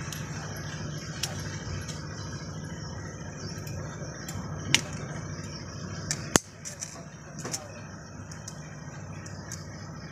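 Sharp metallic clicks and clinks as piston rings and ring tools are handled while fitting rings onto a diesel engine piston, the two loudest about four and a half and six and a half seconds in, over a steady low hum.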